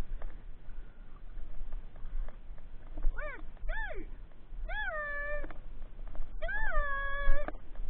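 A dog whining: four high-pitched whines starting about three seconds in, the first two short, each rising and falling, the last two drawn out to nearly a second each.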